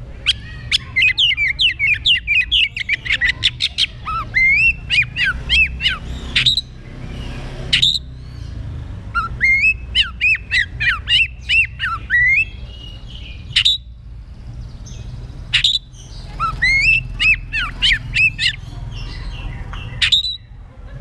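Oriental magpie-robin (kacer) singing loudly in full voice: three long runs of fast, varied whistled phrases, with short sharp notes between them.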